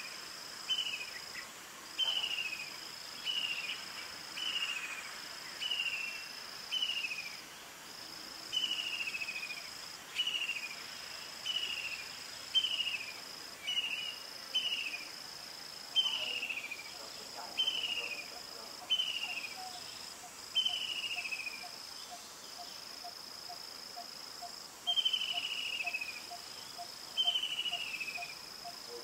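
Insects calling in chorus. A steady high buzz runs in long stretches with short breaks, over short falling calls repeated about once a second. From a little past halfway, a faint, fast, lower pulsing joins in.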